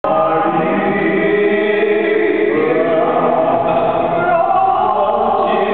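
A few voices singing together, men's and women's, in long held notes that slide slowly from one pitch to the next.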